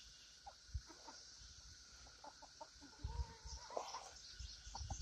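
A flock of chickens clucking quietly as they forage: a handful of short, soft clucks and one longer call a little past three and a half seconds in, with a few low bumps from about three seconds on.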